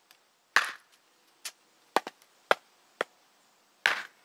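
Hults Bruk Almike hatchet and a stick of firewood held together and struck down onto a wooden chopping stump: a series of sharp wooden knocks about every half second, the heaviest about half a second in and near the end. Each strike drives the hatchet head into the end of the stick along the grain to split it.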